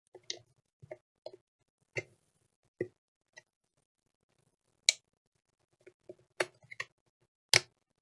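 Plastic hinge cover of an HP EliteBook 830 G5 laptop being pressed and worked against its retaining clips: a scatter of small plastic clicks and taps, with sharper clicks about five seconds in and near the end. The cover is not clipping home.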